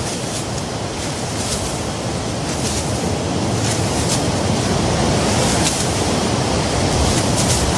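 Steady wash of surf on a sandy beach, with a few faint, brief swishes of sand as a female loggerhead turtle flings sand back with her flippers to bury her nest.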